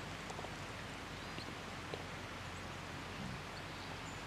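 Quiet outdoor ambience: a steady faint hiss with a few soft, scattered ticks.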